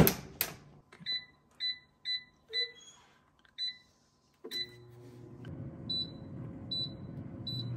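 Air fryer baskets pushed shut with a click, then the touch-control panels of two air fryers, a Cosori Dual Blaze and a Gourmia, beeping as their buttons are pressed, a string of short high beeps. About halfway through, an air fryer's fan starts and runs with a steady hum as cooking begins, while a few more beeps sound over it.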